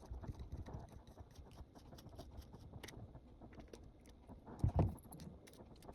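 Faint scratching and small clicks of a small screwdriver turning out a laptop's battery screw, with one louder knock a little over four and a half seconds in.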